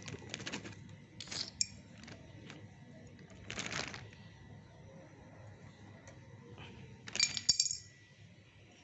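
Small hard parts being handled: a few light knocks and rustles, then a brighter clink with a short ring about seven seconds in.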